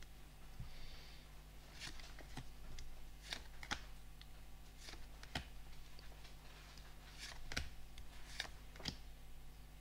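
Pokémon trading cards handled in the hand, each card slid off the front of the stack and tucked behind the others, giving soft irregular card-on-card flicks and slides.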